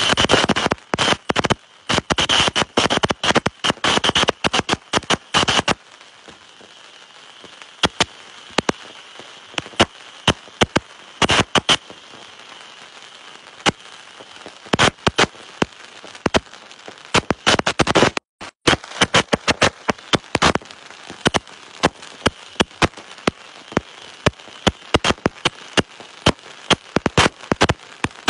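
Firecrackers and ground fireworks going off: a dense run of sharp bangs for the first six seconds or so, then scattered bangs and crackling over a steady hiss.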